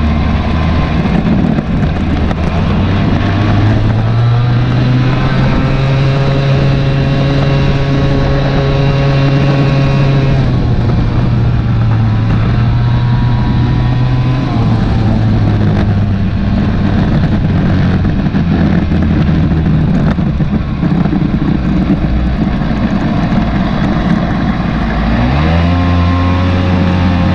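Suzuki LT80 quad's small two-stroke single engine running while riding. Its pitch rises about four seconds in, holds steady, and drops off around ten seconds. It climbs again sharply near the end.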